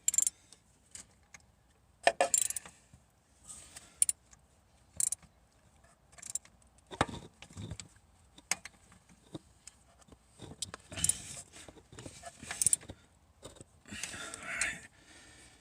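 Scattered, irregular metallic clinks and rattles of hand tools and small metal parts being handled, with a short stretch of scraping and rustling near the end.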